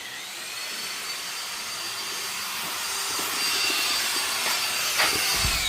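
A power tool's motor running with a high whine over a hissing noise, then spinning down with a falling pitch near the end.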